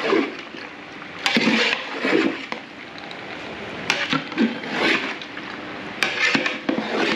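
A long metal ladle stirring a big metal pot of chicken pieces and potatoes frying in oil: wet scraping and squelching strokes, about six of them a second or two apart, over a steady hiss.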